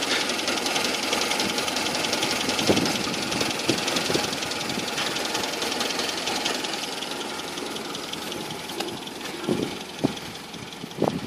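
An old Land Rover's petrol engine idling steadily, running again on a newly fitted Lucas electronic ignition. It grows fainter toward the end, with a few brief thumps in the last couple of seconds.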